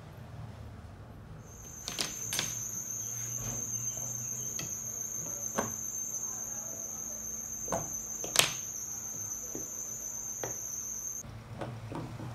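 Light clicks and knocks of S500 quadcopter frame parts being handled and fitted together, the loudest a sharp knock about eight seconds in. Behind them, a steady high-pitched tone starts about a second and a half in and cuts off abruptly near the end.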